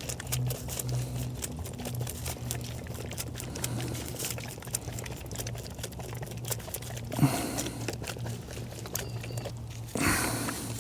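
Orphan lamb sucking milk from a feeding bottle: a quick run of small wet clicks and slurps. A brief louder sound comes about seven seconds in.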